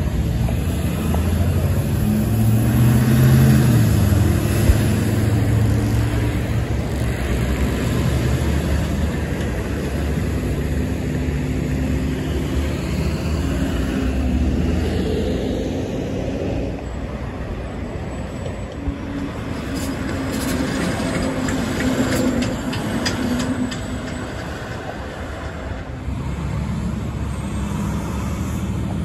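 Close street traffic: cars and heavy trucks driving past with engine and tyre noise. The low engine drone swells twice as big trucks go by.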